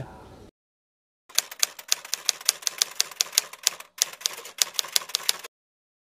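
Typewriter sound effect: a run of rapid key clicks, about five a second, lasting about four seconds with a brief break partway. It sits between stretches of dead silence and goes with on-screen text being typed out on a title card.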